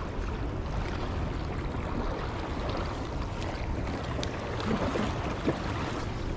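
Outdoor wind and sea noise: a steady rumbling hiss of wind on the microphone with water lapping. A few faint clicks come about four to five seconds in.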